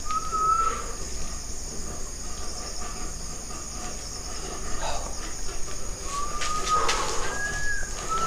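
Cord of a swaying cloth hammock creaking where it is tied to a wooden post: short squeaks that bend up and down in pitch, one at the start and three more near the end, over a steady high drone of insects.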